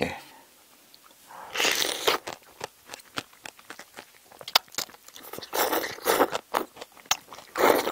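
Close-miked eating of spicy braised seafood with bean sprouts: wet chewing and crunching, with many sharp crunchy clicks and three louder, longer noisy stretches, about 1.5 s in, halfway through and near the end.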